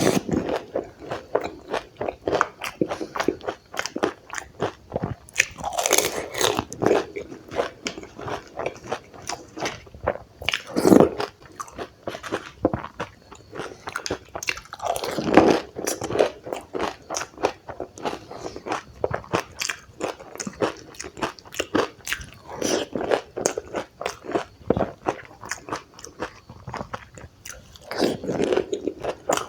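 Close-miked chewing and crunching of dahi puri: crisp hollow puri shells filled with yogurt, chutney and bhujia. Steady chewing clicks throughout, with a louder bite every few seconds as a fresh puri is bitten into.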